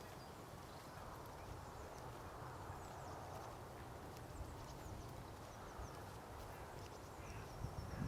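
Wind rumbling on the microphone while someone walks along a path, footsteps plodding steadily, with a few faint high chirps over the top.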